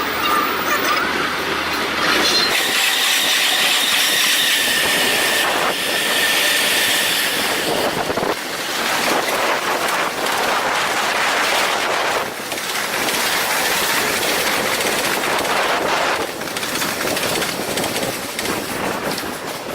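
Train running past at close range, with a steady high whine for a few seconds, then wheels clacking rhythmically over the rail joints.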